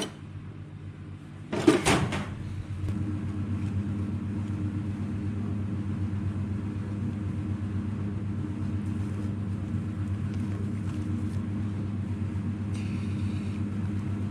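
A loud, brief noise about two seconds in, then a steady low mechanical hum that holds without change.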